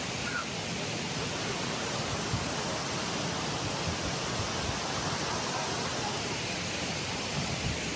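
Steady rushing of a waterfall and creek water.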